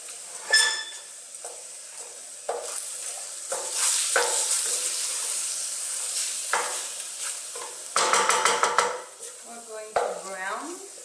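Ground turkey sizzling over high heat in a stainless steel sauté pan, stirred with a wooden spoon in repeated scraping strokes. There is a ringing clink about half a second in, and a louder stretch of scraping about eight seconds in.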